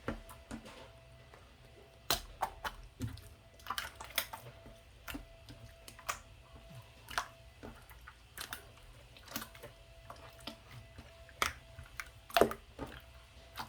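Irregular light clicks and taps of glassware and utensils being handled while making a fruit ade, a few per second at their busiest, with the sharpest knocks about two seconds in and near the end.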